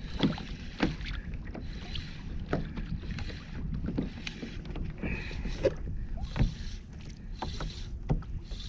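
Wind rumbling on an action camera's microphone aboard a fishing kayak, with water washing against the hull and scattered light knocks and clicks.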